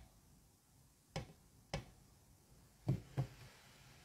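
Kinetic sand tower crushed flat under a round black press, giving four short, soft crunches; the last two come close together, about a third of a second apart.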